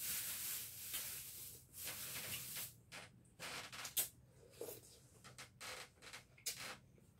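A man eating rice and fish by hand: a breathy rush at the start, then short, irregular bursts of chewing and lip-smacking.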